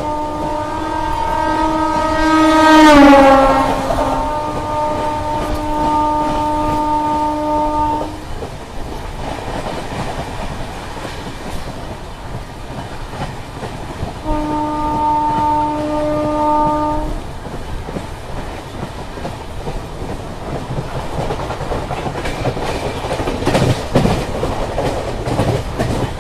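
Indian Railways locomotive horn sounding a long blast as a fast train passes; its pitch drops sharply about three seconds in, at its loudest, and the horn holds until about eight seconds in. Then wheels clatter on the rails, a second horn blast of about three seconds sounds midway, and the train keeps rolling by, with a couple of loud knocks near the end.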